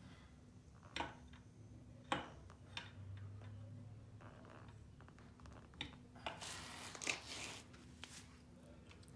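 Scattered clicks and knocks of tools and metal engine parts being handled during an engine teardown, with a brief rustling hiss about two-thirds of the way in.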